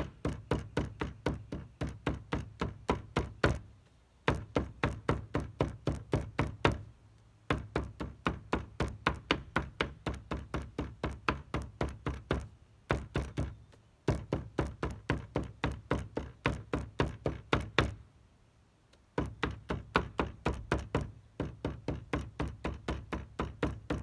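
Rubber mallet pounding folded paper, with leaves and a fern inside, on a wooden table: dull thuds about four a second, in runs broken by a few short pauses. The pounding crushes the plants so their colour transfers to the paper.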